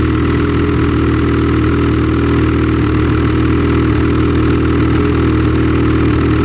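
Snowmobile engine running at steady, unchanging revs, with no rise or fall in pitch.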